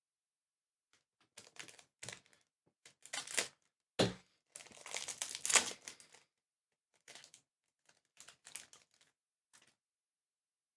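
A trading-card booster pack wrapper being crinkled and torn open in irregular bursts, with a single sharp knock about four seconds in.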